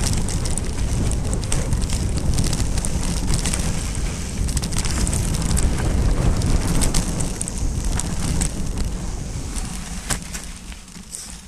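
Wind rushing over the microphone of a bike-mounted action camera, with a mountain bike's tyres rumbling over dirt singletrack and scattered clicks and rattles from the bike. The noise dies down near the end as the bike slows.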